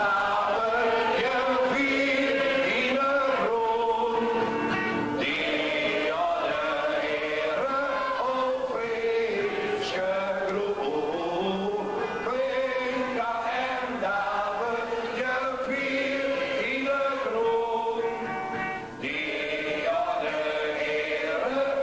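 A roomful of people singing a song together, one melody carried through.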